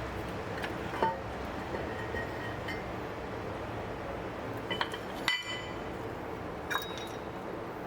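Metal brake parts and tools clinking a few times, each knock leaving a short ringing note, the loudest about five seconds in, as a brake caliper is taken off its mounting.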